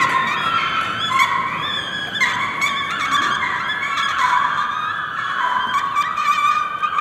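Several high, sustained tones overlapping and sliding slowly up and down in pitch, with a few light clicks, like a drone or sound-art music track.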